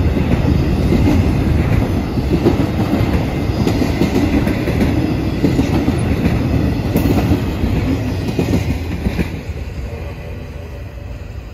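An intermodal freight train's cars rolling past on the rails, wheels clattering over the track joints, fading away near the end.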